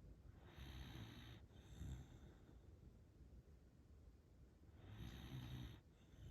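Elderly black Shiba Inu snoring in her sleep. Two faint snores come about four and a half seconds apart, each lasting about a second, and the first is followed by a short puff of breath. The owner takes the heavy snoring for a sign that she is tired.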